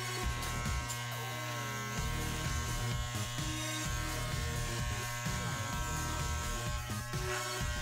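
Electric hair clippers with a snap-on guide comb running with a steady low buzz as they cut through hair on the side of the head.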